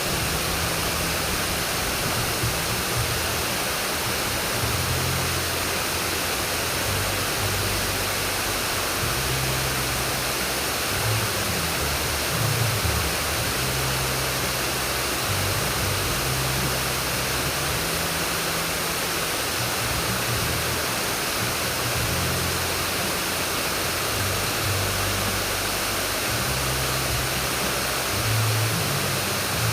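Steady rushing water, like a river current or small weir, with an uneven low hum underneath.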